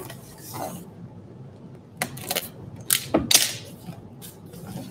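Packaging being handled during an unboxing: plastic wrapping rustling and cardboard gift boxes knocking and scraping, in a few short bursts about two and three seconds in.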